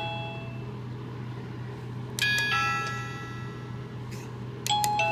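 EMY wireless plug-in doorbell receiver playing one of its song chimes: electronic bell-like notes, a cluster of several about two seconds in and more near the end, each ringing on and fading.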